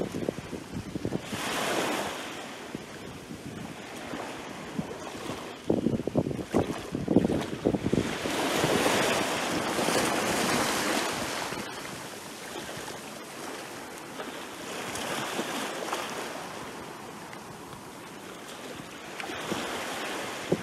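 Small sea waves washing up and breaking at the shoreline close to the microphone, surging and fading every few seconds, with splashing as waves break a few seconds in and around the middle.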